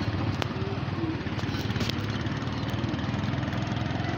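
Small engine running steadily with a fast, even beat, heard from on board a moving vehicle on a dirt road.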